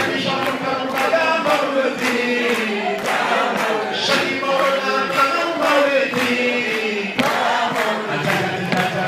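A group of men singing a Sufi devotional chant together, over a steady beat of sharp hits about two to three a second.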